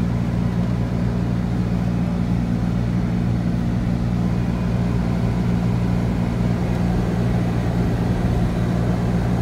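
Steady low drone of a car's engine and road noise while driving, heard from inside the cabin.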